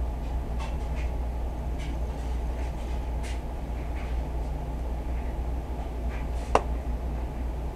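Steady low rumble with a few faint scattered clicks, and one sharper click about six and a half seconds in.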